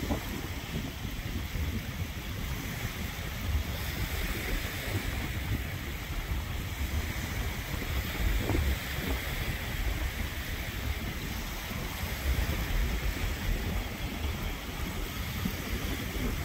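Wind noise on the microphone over the steady wash of small waves breaking on a sandy beach.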